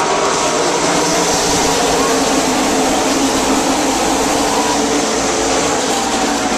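The V8 engines of a pack of NASCAR stock cars running at full throttle as the field accelerates away on a restart: a loud, steady, unbroken roar.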